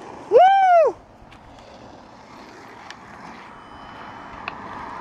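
A single short, loud, high-pitched yell, about half a second long just after the start, its pitch rising and then falling: a cheer for a landed skateboard trick. After it comes steady background noise with a few faint clicks.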